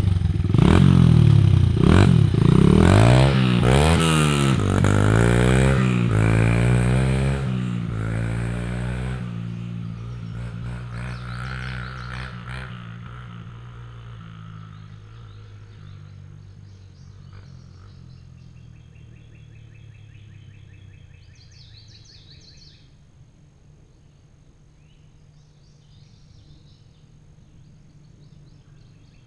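Honda CRF100F dirt bike's single-cylinder four-stroke engine, fitted with an exhaust tip, revving hard and shifting up through the gears, its pitch climbing and dropping with each shift. After about nine seconds it fades into the distance until it is barely heard.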